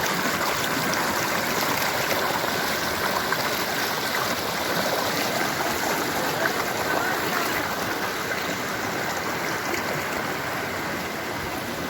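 Running water of a stream, a steady close rush and gurgle without pause.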